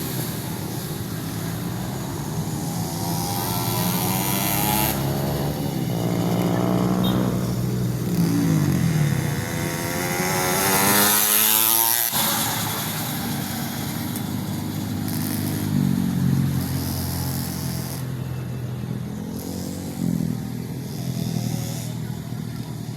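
Small-engine mini motorbikes running, their engine note rising and falling as they rev and ease off. A loud rising rev near the middle cuts off abruptly.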